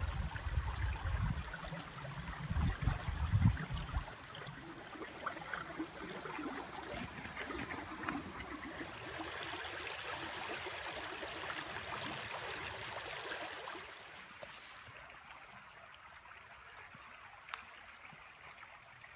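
A creek running with steady rushing water, strongest in the middle and fading near the end. A low rumbling noise on the microphone in the first four seconds.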